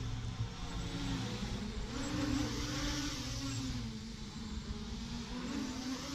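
Motorcycle engine running under way. Its pitch rises about two seconds in, drops back, then rises again near the end, over a rushing noise that swells with it.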